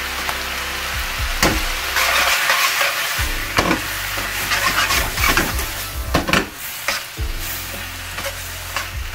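Vegetables sizzling in a hot wok as they are stir-fried, with several sharp scrapes and knocks of a metal spatula against the wok.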